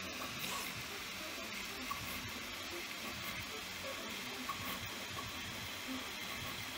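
3D printer running: a steady fan hiss with short stepper-motor tones at shifting pitches as the print head moves.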